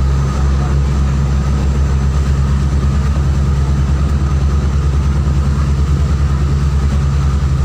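Passenger motorboat's engine droning steadily under way, with a fast, even throbbing beat.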